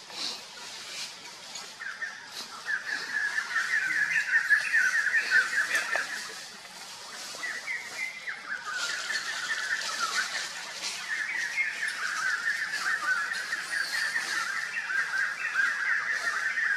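Birds calling in rapid, chattering runs, in two long stretches with a short lull about six seconds in.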